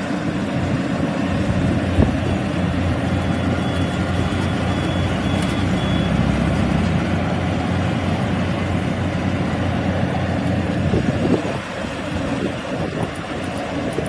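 Crawler combine harvester's engine running steadily as it harvests rice. A faint repeated high beep sounds for a few seconds near the start.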